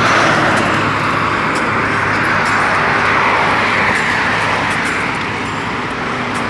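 Road traffic on a multi-lane road passing close by: a steady wash of tyre and engine noise that swells slightly as cars go past.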